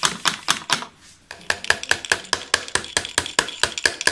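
Small hammer tapping quickly on a metal pin, about six light strikes a second, driving it into a BMW comfort access door handle. There is a short pause about a second in, then the tapping resumes.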